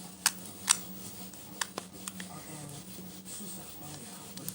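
Handling noise: a few short, sharp clicks in the first two seconds and soft rubbing, over a faint steady hum.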